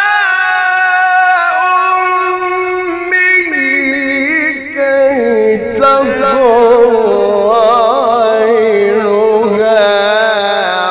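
A man's melodic Qur'an recitation into a microphone: long held, ornamented phrases with wavering pitch. The voice dips briefly about four and a half seconds in, then carries on at a lower pitch.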